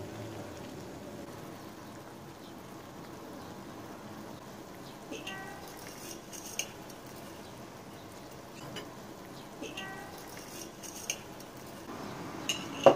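Sour cherry jam at a rolling boil in a stainless steel pot: a steady bubbling with occasional pops. Near the end come a few sharp metal clinks against the pot.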